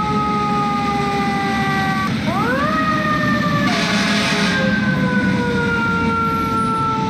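Fire engine siren wailing: its pitch falls slowly, then about two seconds in it sweeps sharply up and glides slowly down again, over a steady truck and traffic rumble. A short hissing burst comes just before the middle.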